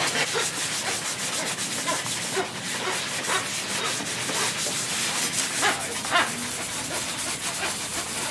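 Hand rasp and sandpaper scraping along a hickory stickball stick in repeated, uneven strokes, smoothing its edges so the wood won't splinter.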